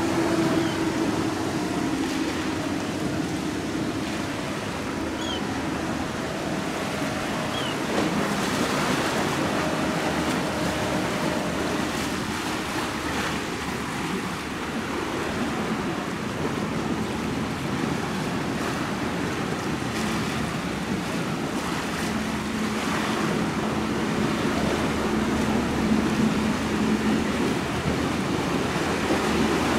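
Surf and wind noise with the low steady drone of sportfishing yachts' engines running at speed through chop; the engine hum and bow spray grow a little louder toward the end as the lead boat comes closer.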